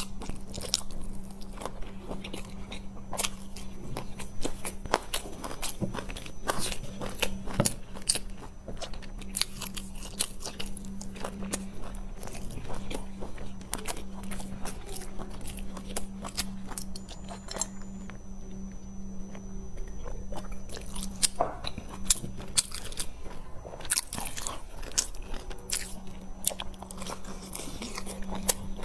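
Close-up eating sounds: bites into large stuffed buns, chewing and many sharp wet mouth clicks and smacks, over a steady low hum.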